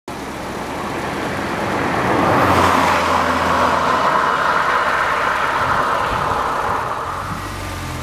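Car road noise: tyres and engine on asphalt swelling up, loudest from about two and a half seconds in, then easing off near the end.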